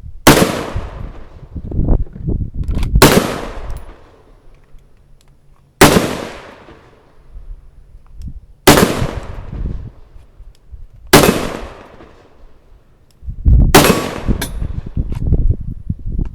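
Gunshots fired one at a time at an even, unhurried pace, one about every two and a half to three seconds, about seven in all, each a sharp crack with a short fading tail; two come close together near the end.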